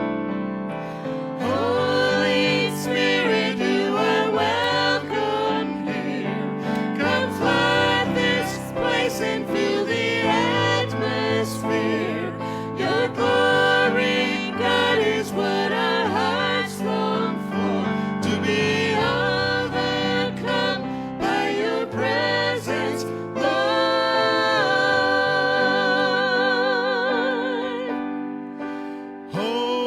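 Gospel worship music: a singer over instrumental accompaniment, with a long held note sung with vibrato about three-quarters of the way through.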